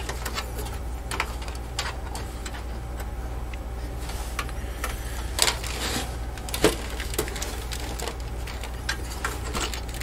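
Clicks and light clatter of a computer's sheet-steel drive cage and a SATA cable being handled, with two sharper knocks about five and a half and six and a half seconds in, over a steady low hum.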